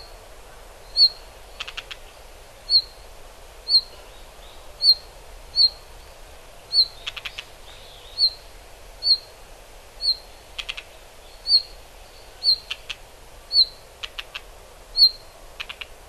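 Red-flanked bluetail calling: a short, high whistled 'hit' note about once a second, with now and then a quick run of dry clicking 'tak' notes.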